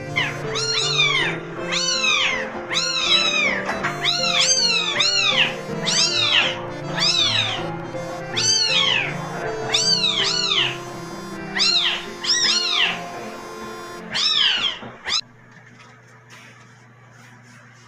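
Young kittens mewing loudly and over and over, high-pitched calls that rise and fall in pitch, about one a second and sometimes overlapping, over background music. The mewing and the music stop abruptly about fifteen seconds in.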